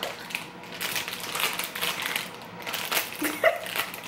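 Plastic Bamba peanut-puff snack bag crinkling and rustling in irregular bursts as it is pulled open by hand. A brief vocal sound comes a little after three seconds.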